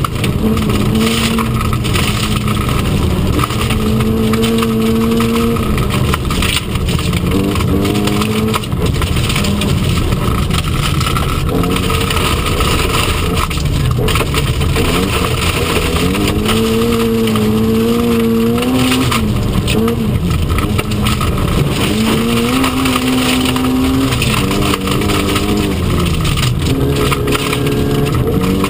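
Mk1 Mini Cooper S's four-cylinder A-series engine at full rally pace. The engine pitch rises hard several times and drops sharply at each upshift, over loud tyre and gravel noise inside the stripped cabin.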